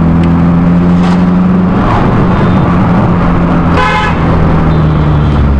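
Hyundai Accent's engine running steadily through a straight-piped exhaust with no resonator, heard from inside the cabin while driving. A vehicle horn honks briefly about four seconds in.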